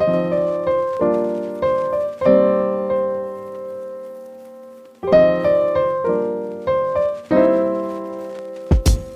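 Background music: piano chords struck and left to ring, several times over, with a drum beat coming in near the end.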